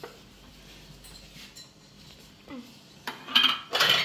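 Kitchenware clattering: after a mostly quiet stretch, a metal ladle clinks and scrapes against a cooking pot several times in the last second or so.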